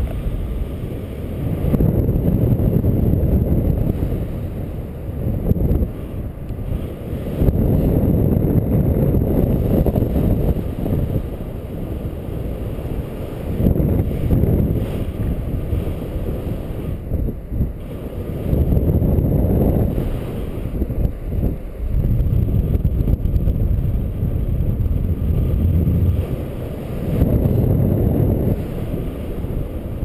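Airflow of paraglider flight buffeting the pilot's camera microphone: a loud, low wind rumble that swells and eases every few seconds.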